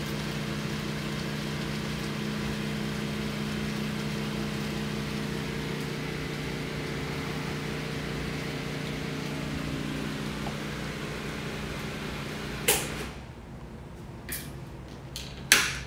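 Electric blender running steadily as it purées hummus of chickpeas and tahini, then switched off about thirteen seconds in. A couple of sharp clicks follow, one as it stops and one near the end.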